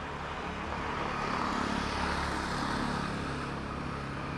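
A motor vehicle passing by in street traffic. Its noise swells through the middle and fades toward the end.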